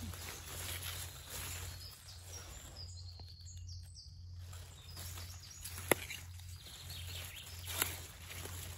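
Wild garlic leaves rustling as they are brushed by hand, over a steady low hum. A sharp click comes about six seconds in, and a softer one nearly two seconds later.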